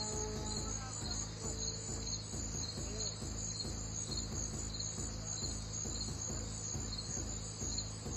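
Crickets chirping in an even pulse, about three chirps a second, over a steady low hum. A few held music notes die away about a second in.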